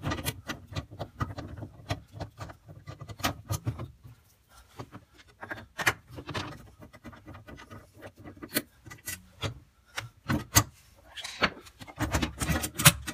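A quarter-inch nut driver loosening the two nuts that hold the ice maker, giving irregular clicks, scrapes and rubbing. Near the end there is denser handling noise as the plastic ice maker unit is gripped.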